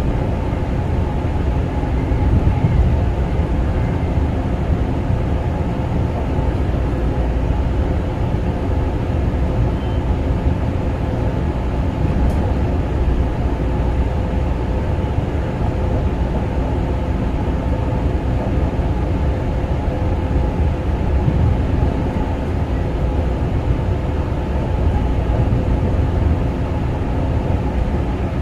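Kawasaki M9 electric railcar train running along the track: a steady rumble of wheels on rail with a constant low hum.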